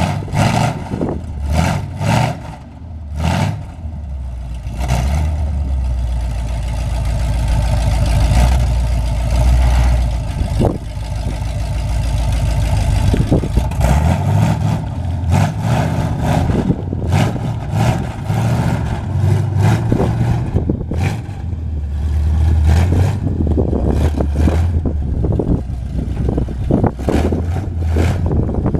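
Lifted monster truck's engine running, rising and falling in speed as it is revved, with the truck starting to drive off near the end.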